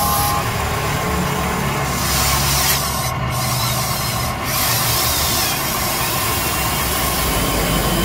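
A Huina RC excavator's electric motors and gear drives whirring as the boom, arm and bucket move, with the bucket scraping and grinding through wet mud. The whir drops out briefly twice, about three and four and a half seconds in, as the motors stop between moves.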